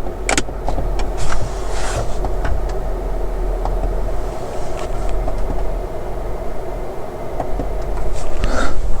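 Electric sunroof motor of a 2010 Mercedes-Benz S550 running steadily as the roof slides, operated with the newly replaced switch, with a few short clicks along the way.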